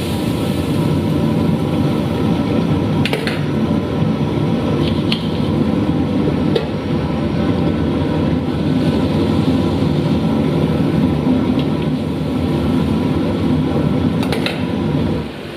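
Steady low roar of a stove burner under frying noodles, with a few sharp clicks of a spatula against the wok, about three seconds in and near the end.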